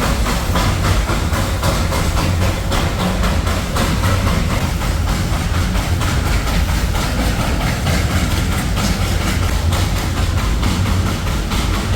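Darjeeling Himalayan Railway steam toy train running along the narrow-gauge track: a steady low rumble with a dense, continuous rattle and clatter.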